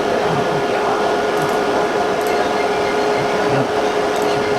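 Steady fan or motor hum with a constant low tone, a few faint ticks over it.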